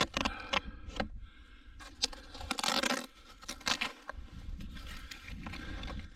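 Birch bark being peeled and torn by hand, an irregular run of crackling tears and scrapes with a few sharp snaps.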